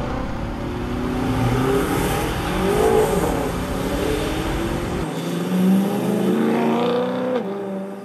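BMW 528i's N20 turbocharged four-cylinder engine pulling under acceleration, its pitch rising and falling, heard from inside the cabin over road rumble. The low rumble drops out abruptly about five seconds in while the engine note carries on.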